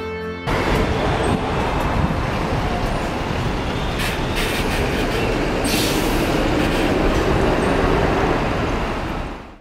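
Train noise: a steady, loud rumbling din that cuts in abruptly about half a second in and fades out near the end.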